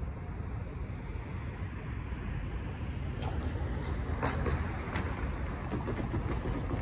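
A car driving over a railroad grade crossing, its tires knocking and clattering over the rails from about three seconds in, over a steady low rumble.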